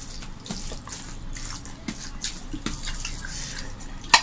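Wet, irregular squelching and small clicks of rice and curry being mixed and squeezed by hand on steel plates. One sharp click near the end is the loudest sound.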